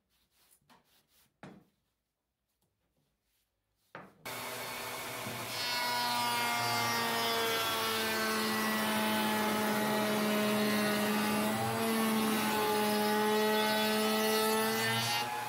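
A few faint taps of wood being handled, then about four seconds in a table-mounted router switches on and runs with a steady whine. It gets louder about a second and a half later as an MDF strip is fed across the bit, the whine sagging slightly in pitch under the cut.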